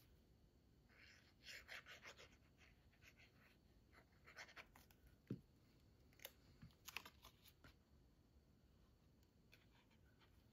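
Faint rustling and light tapping of cardstock pieces being handled and pressed together, in short scattered clusters over near-silent room tone.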